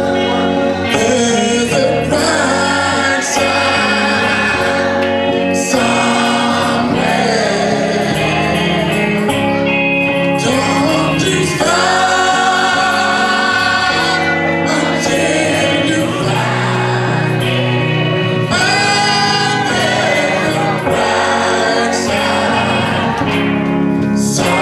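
Gospel choir singing a song, a male lead vocalist on a microphone over the choir, with live band accompaniment including electric guitar.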